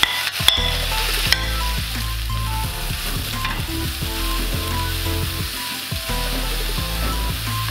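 Freshly added carrots, chillies and greens sizzling in hot coconut oil in a metal wok as they are stirred with a metal slotted spoon. The spoon clicks against the wok a few times in the first second and a half.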